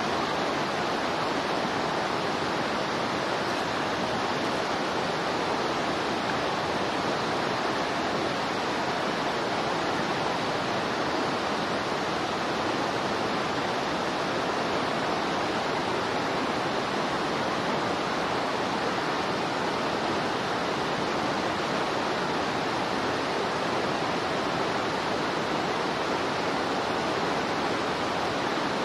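A steady, unbroken rushing noise at an even level, with no calls, knocks or other events standing out of it.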